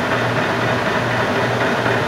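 Clausing Nardini MS-1440E engine lathe running under power: a steady mechanical hum from the motor and geared head, with a low throb about twice a second.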